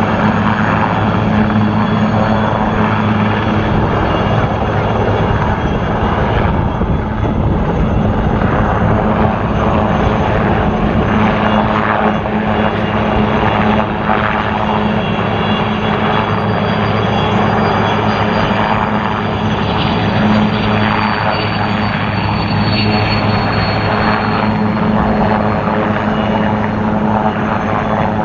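A formation of military helicopters flying past, their rotors and turbine engines making a steady drone. A faint high whine slides slowly downward about two-thirds of the way through.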